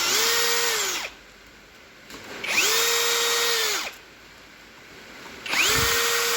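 A power drill-driver unscrews the 10 mm bolts that hold the crate machine's head to its frame. It runs in three short bursts of about a second each. In each burst the motor's whine rises, holds a steady pitch, then winds down.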